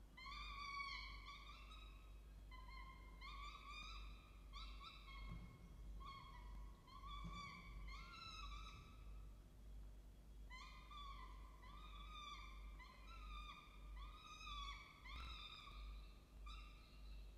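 Peregrine falcon chick begging to be fed: a run of short, high calls that rise in pitch, about one to two a second, with a pause of about a second midway.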